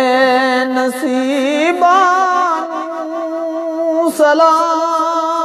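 A voice singing a Punjabi qaseeda in long, drawn-out notes without words, the pitch wavering and sliding between notes, with a brief break about four seconds in.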